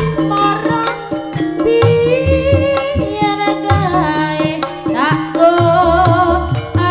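Live jaranan music from a Javanese gamelan-style ensemble: kendang hand drums keep a driving beat under a high, wavering melody line that bends and shakes in pitch.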